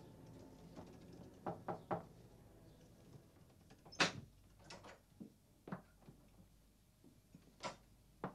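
A string of sharp knocks and thuds as a wooden door is opened and people come in, the loudest knock about four seconds in.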